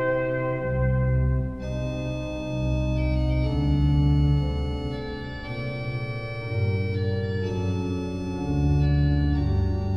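Organ music: sustained chords over deep held bass notes, the harmony changing every second or two.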